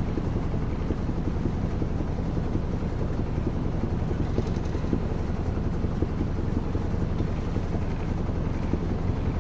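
Small boat's outboard motor running steadily close by, with a fast, even beat.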